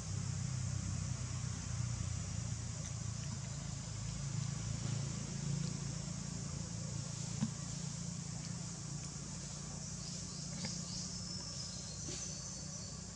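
Outdoor background: a steady low mechanical hum like a running engine, under a constant high insect buzz, with a few short insect chirps near the end.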